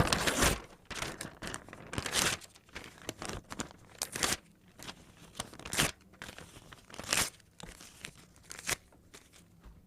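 Crunching, crinkling and tearing noises in an irregular run of loud bursts, the loudest right at the start and then every second or so.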